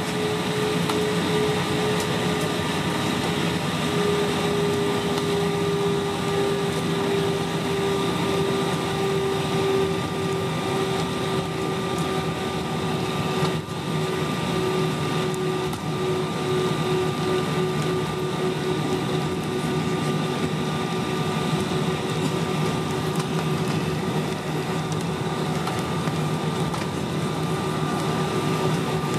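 Steady cabin noise of an Airbus A320-232 taxiing, its IAE V2500 engines at idle: an even rush with a steady whine that sinks slightly in pitch.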